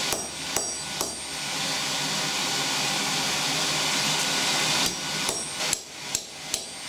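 Hammer striking steel on an anvil, each blow ringing high: three blows, then a steady hiss for about four seconds, then a quicker run of blows near the end.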